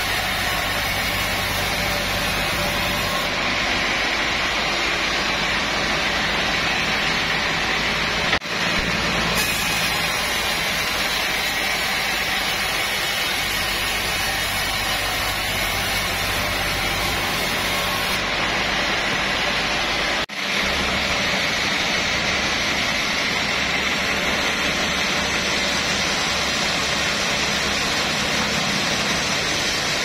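Sawmill band saw running steadily while sawing a teak log: a loud, dense, continuous machine noise. It drops out for an instant twice, about a third and two-thirds of the way through.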